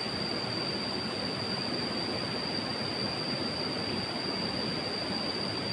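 Steady rush of flowing river water, with a steady high-pitched tone running above it.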